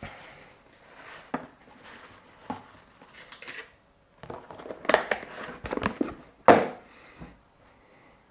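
Plastic keyboard parts being handled: a scatter of sharp plastic clicks, the loudest about five and six and a half seconds in, among soft crinkling and rustling.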